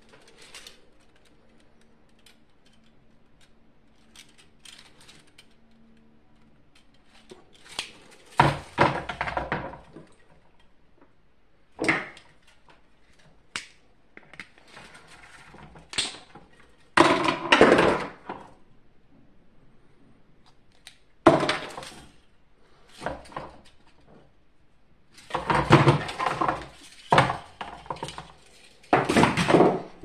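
Hard plastic parts of a vacuum cleaner being handled, pulled apart and set down on a wooden floor during disassembly: irregular clattering knocks that come in clusters, the loudest about eight seconds in, in the middle, and over the last few seconds. A faint steady hum runs underneath and stops about seven seconds in.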